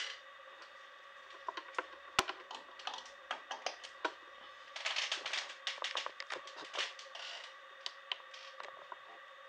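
Keys on an Acer laptop keyboard being pressed: scattered clicks and taps, with a quick flurry of keystrokes about five seconds in.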